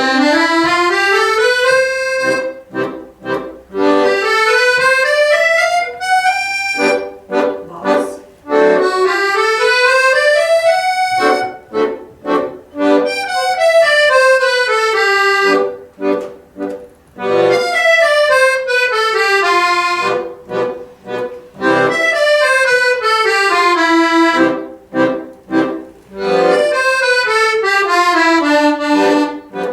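Accordion étude: quick right-hand runs that rise and fall over and over, against short detached chords in the left-hand accompaniment.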